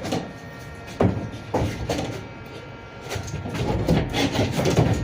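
Hand work on a van's interior panels: a few sharp knocks early on, then a stretch of scraping and rubbing over the last two seconds.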